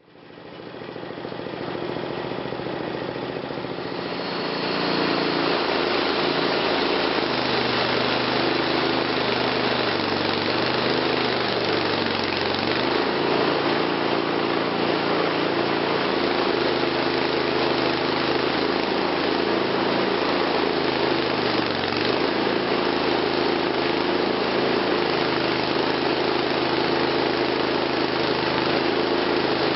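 Wood-Mizer LT20 portable sawmill's engine running steadily. It fades in, then steps up to a louder, fuller running sound about four seconds in and holds there.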